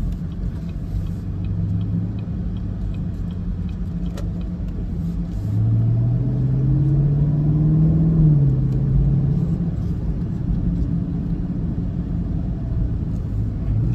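Chevrolet Camaro SS's 6.2-litre V8 heard from inside the cabin at low speed, over road rumble. About five and a half seconds in, the engine note rises and grows louder under acceleration, then drops as the 10-speed automatic shifts up.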